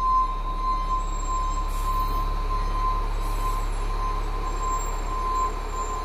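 Steady mechanical hum: a low rumble with a constant high whine held at one pitch.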